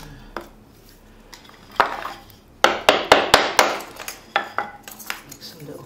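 Bushcraft knife cutting very dry kindling on a wooden log round: sharp knocks and scrapes of blade on wood. A quick run of about six strikes in a second comes near the middle, with a few more spaced out after.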